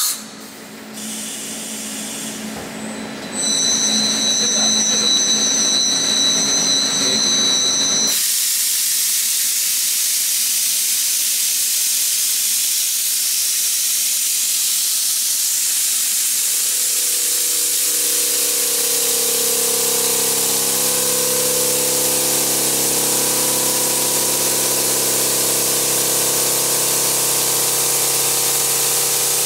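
FICEP Valiant CNC beam line milling a steel beam flange with a spindle-driven cutter. A quieter machine noise with steady high tones changes abruptly about eight seconds in to a loud, steady hiss, and a steady whine from the cutting joins it about halfway through.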